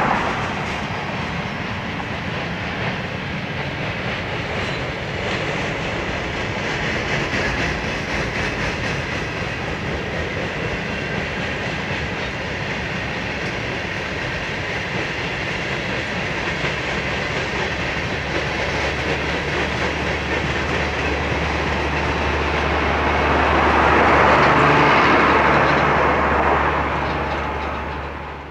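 Freight train cars (coal gondolas and tank cars) rolling past on the rails, a steady rolling noise of wheels on track that swells louder a few seconds before the end and then fades out.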